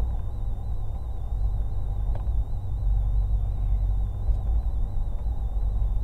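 Steady low rumble of a car's engine and tyres heard from inside the cabin while driving at road speed, with a faint wavering high whine over it.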